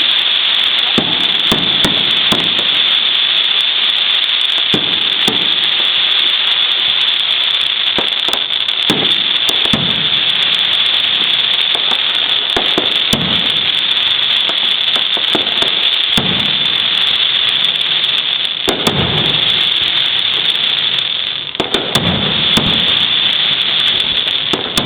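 Fireworks display: a continuous dense crackle and fizz, with the deep booms of shells bursting every one to three seconds.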